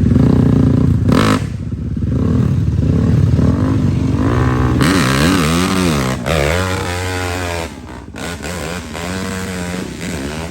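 Dirt bike engine running loud, then revved up and down again and again from about five seconds in, its pitch rising and falling with each blip of the throttle.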